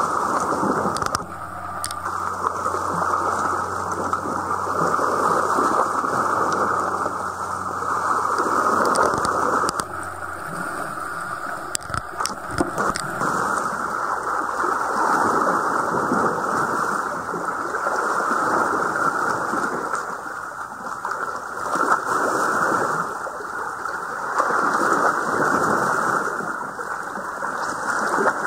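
Sea water washing against the rocky shore just below, a steady rushing noise that swells and eases every few seconds.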